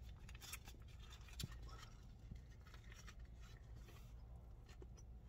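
Faint chewing and mouth clicks from a mouthful of fried chicken sandwich, with scattered small ticks and one slightly louder click about a second and a half in, over a low steady hum.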